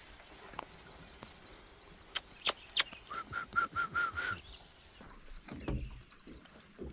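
Three sharp knocks in quick succession, then a rapid run of six short, clear bird notes, and a dull low thud near the end, with faint bird chirps in the background.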